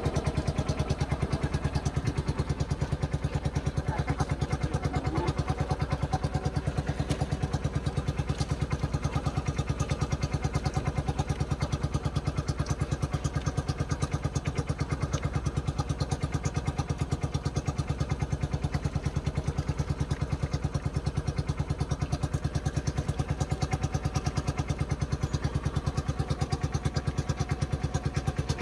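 A small engine running steadily at an even speed, with a fast, regular pulsing beat.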